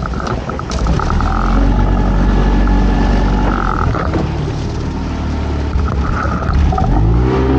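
A small boat's outboard motor running steadily, then speeding up with a rising pitch near the end.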